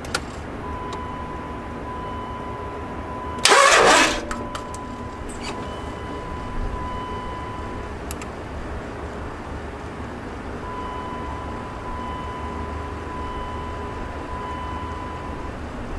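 Electric diesel lift pump (a FASS direct-replacement pump on a Cummins 24-valve) running steadily with a thin high whine while priming with the ignition on. The whine stops a little past halfway and comes back about a second and a half later. A brief loud rushing burst about three and a half seconds in is the loudest sound.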